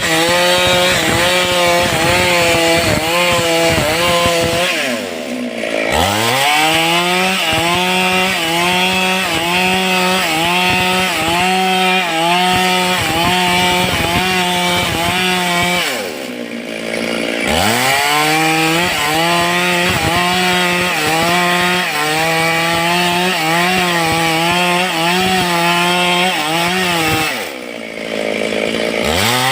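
Stihl chainsaw running at high revs and cutting wood, its pitch wavering under load about once a second. Three times the engine drops off toward idle and revs back up.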